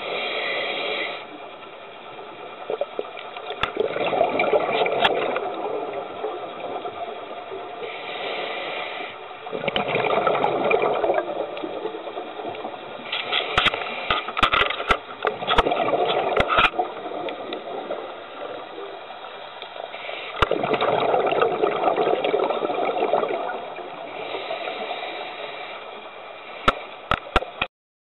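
Scuba diver breathing through a regulator underwater. Each breath is a hiss on the inhale followed by a louder rush of exhaled bubbles, repeating about every six seconds, with scattered sharp clicks.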